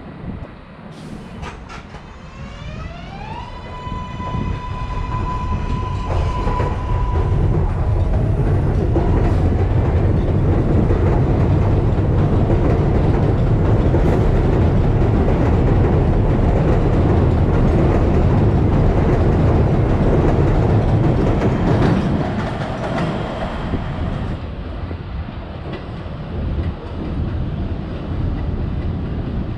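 An R188 subway train on the 7 line passes through the station. Its electric drive gives a rising whine that levels off into a steady tone for a few seconds. The wheels then rumble and clatter loudly for about twelve seconds before the noise drops off toward the end.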